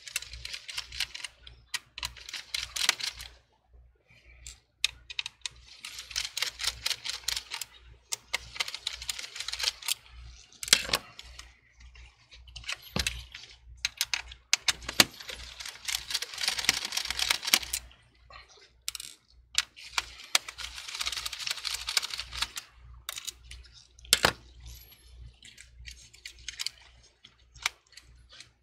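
A screwdriver clicking rapidly in bursts of one to three seconds as screws holding a laptop motherboard and CPU fan are backed out, with a few single sharp knocks in between.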